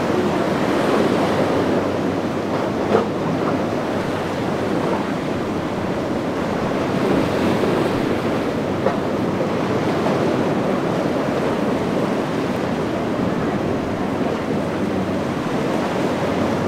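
Rough surf and breaking waves rushing steadily, with wind buffeting the microphone.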